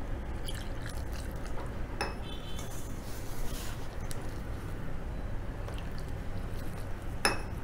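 Wheat flour being mixed by hand in a stainless-steel bowl as water is poured in from a steel tumbler, a soft squishing rustle. A metal clink with a short ring about two seconds in, and another sharp clink near the end, as the steel tumbler and bowl touch.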